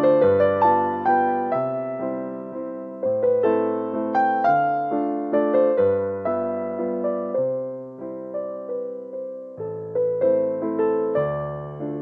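Background piano music: single notes struck in a gentle melody over a stepped bass line, each note fading after it is struck. The bass drops out for a thinner passage about two-thirds of the way in, then returns.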